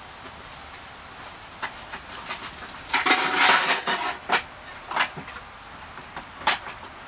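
Clatter of tools being handled: scattered knocks, with about a second of louder scraping rattle a little before the middle.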